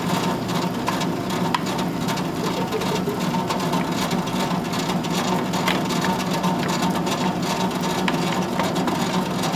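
Metal hand-cranked corn mill grinding corn: a steady grinding noise full of small clicks.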